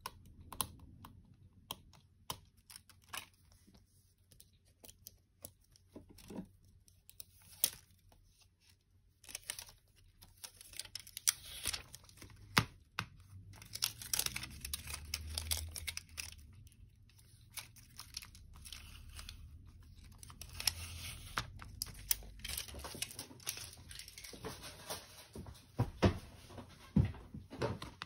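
Hands and small tools working on a tablet during a screen repair: scattered small clicks and taps of plastic and metal parts, with longer stretches of scraping or rubbing.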